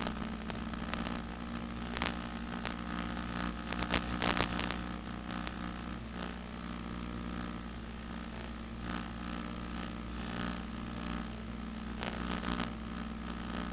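Hexcopter's six electric motors and propellers humming steadily in flight, with a thin high whine and several crackling clicks, the loudest about four seconds in.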